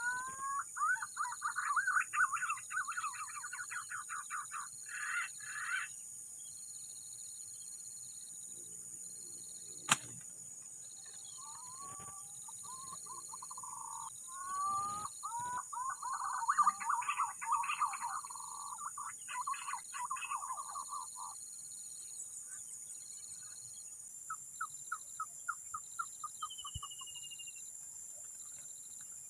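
Birds calling in two long spells of rapid, gliding chattering whistles, then a short run of quick notes near the end, over a steady pulsing chirr of insects. One sharp click about a third of the way through.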